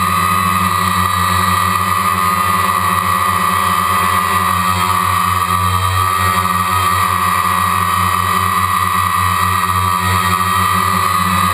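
DJI Phantom quadcopter's four electric motors and propellers running steadily in a hover: a constant hum with a whine above it, heard from the GoPro mounted on the drone inside its waterproof case.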